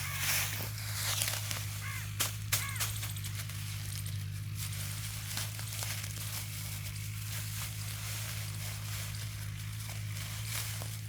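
Dry harvested rice paddy rustling and crackling as it is gathered and tied into bundles by hand, in short irregular crackles. A steady low hum runs underneath.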